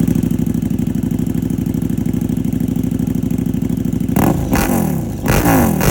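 KTM 1290 Super Duke R's V-twin engine idling with an even pulsing beat just after starting, then blipped in several quick revs that rise and fall, starting about four seconds in.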